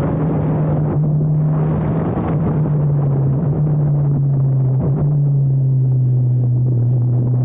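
Formula Abarth single-seater's turbocharged four-cylinder engine running hard with a steady, buzzing note, which drops a little in pitch about halfway through and then holds.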